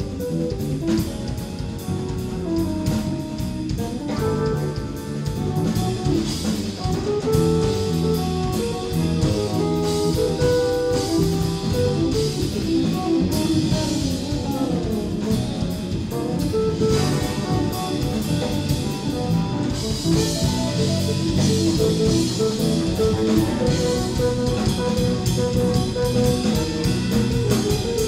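Live jazz-rock fusion band playing: electric guitar and electric bass over a drum kit, with quick runs of notes.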